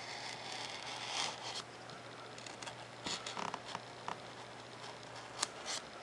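X-Acto hobby knife blade drawing through a thin sheet of 3 mm Depron foam along a ruler. There is a steady scratchy cutting sound for about the first second and a half, then a few light clicks and ticks, the sharpest about five seconds in.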